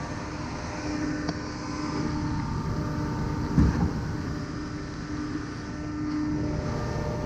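Concrete pump truck running, its engine rumbling steadily and a hum coming and going, with one louder thump about three and a half seconds in.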